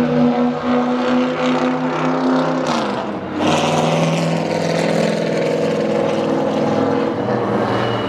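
Stock car engines running laps on an oval track. One car's engine note drops sharply in pitch about three seconds in as it passes, and the engine noise then swells again as more cars come by.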